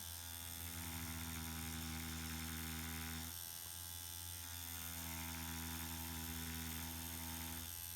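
Permanent-makeup machine for machine hair strokes, buzzing steadily while drawing S-curve strokes. The buzz thins for about a second a little after three seconds, then carries on.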